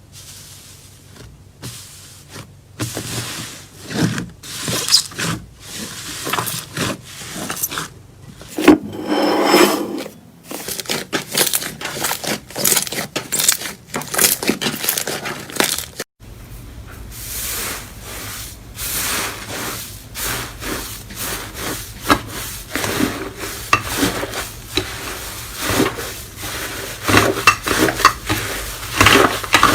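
Slime being squeezed, pressed and scraped by hand, giving a dense run of quick clicks, crackles and rubbing sounds. There is an abrupt change about halfway through, after which a faint low hum sits beneath the clicking.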